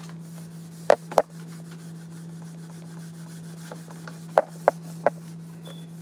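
Food containers knocking and sliding as they are put back onto refrigerator shelves: two sharp knocks about a second in and three more near the end, over a steady low hum.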